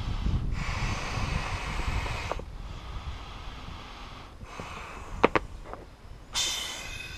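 Breath blown by mouth into the small inflation tube of a kayak seat cushion: long exhales of about two seconds each, broken by short pauses. Two sharp clicks come a little past the middle, and a louder, squeaky hiss follows near the end.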